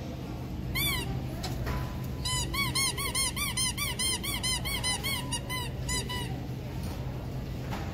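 Squeaky pet toy squeezed over and over: one squeak about a second in, then a quick run of squeaks, about four a second, for roughly four seconds, each a short squeak that rises and falls in pitch.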